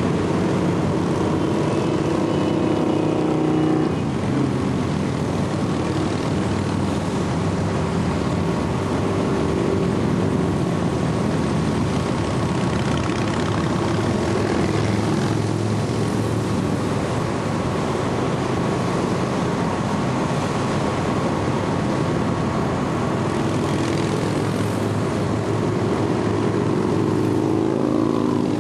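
A steady stream of motorcycles passing on the interstate below, a continuous din of engines and tyres in which single bikes' engine notes swell and fade.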